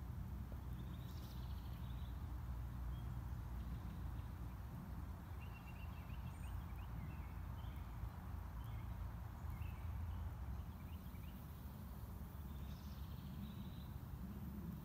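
Outdoor ambience: a steady low rumble with faint, scattered bird chirps, a quick run of them around the middle.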